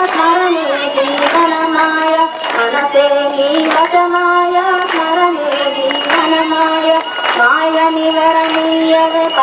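Devotional song to the goddess Durga, sung in a woman's voice in long held, stepping notes, with a bell ringing steadily under it during the lamp aarti.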